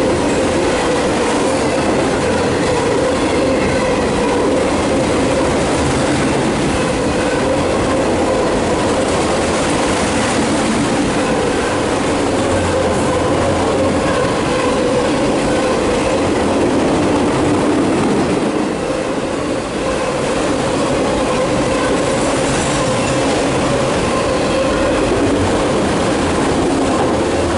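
Empty autorack cars of a CSX freight train rolling past close by: a loud, steady rumble of steel wheels on the rails, with a steady tone running through it.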